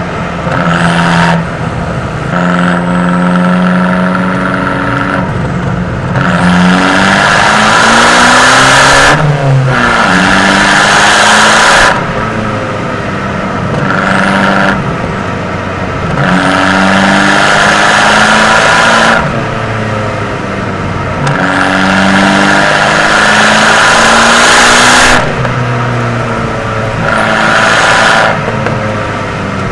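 Abarth 595's turbocharged 1.4-litre four-cylinder through a Record Monza exhaust, driving: it pulls hard for a few seconds at a time, then drops back as the throttle eases, over and over.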